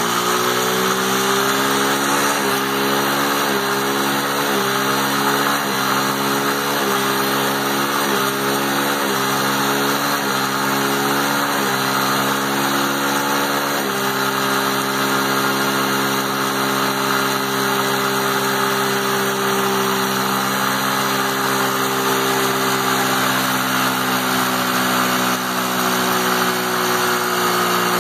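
Small 50cc ATV engine held at a steady high pitch against its rev limiter, the rear tyre spinning in a burnout on wet pavement. For about the first half a regular pulse comes a little faster than once a second, then the note runs smooth and even.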